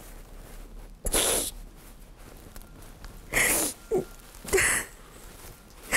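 A woman crying: three sharp, sniffling sobbing breaths, about a second in, at about three and a half seconds and at four and a half, with brief faint whimpers between them.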